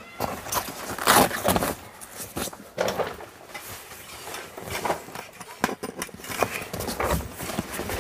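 Metal tent poles knocking and rattling as they are pushed into the clips along a camper trailer tent's roof frame. The knocks come irregularly, and the loudest are about a second in.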